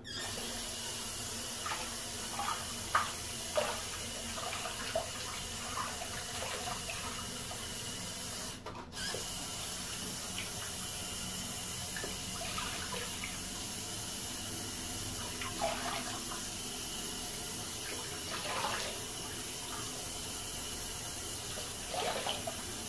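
Bathroom sink tap running steadily, with irregular splashes as shaving lather is rinsed off a face by hand. The flow breaks off briefly about nine seconds in, then runs on.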